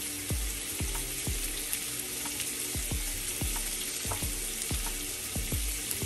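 Thick-cut bacon sizzling steadily in a pan, with soft, irregular knocks about every half second from raw shrimp being mixed with seasoning.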